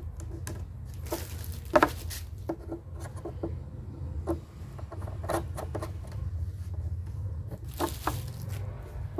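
Scattered small knocks, taps and scrapes of wooden table legs being handled and screwed into the threaded sockets on the hardboard underside of a mini billiard table, with two short rustles, about a second and a half in and near the end, over a steady low hum.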